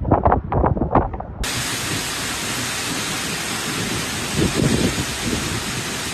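Cyclone winds gusting and buffeting the microphone. About a second and a half in, the sound cuts to a steady hiss of heavy rain and wind.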